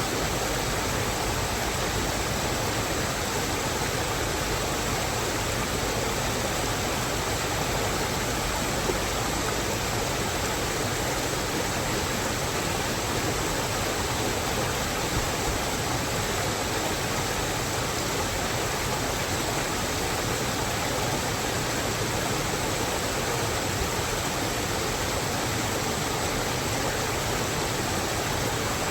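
Steady rain falling on a mountain forest: an even, unbroken hiss with no single drops or other sounds standing out.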